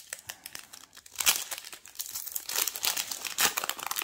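Foil Yu-Gi-Oh booster pack wrapper crinkling and tearing as it is ripped open by hand, a run of crackles that grows louder and denser from about a second in.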